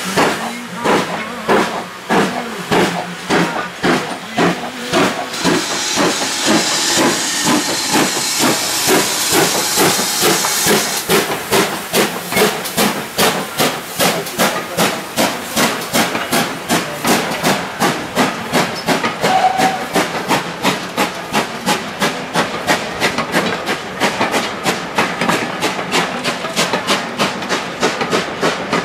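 GWR steam tank locomotive working a passenger train past, with regular exhaust beats and a loud hiss of steam from about five to eleven seconds in. Its carriages then roll past with a steady rhythmic beat, about three a second.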